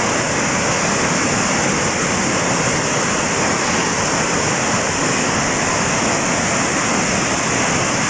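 White water rushing and churning over waterfall rapids, a steady, even rush with no breaks.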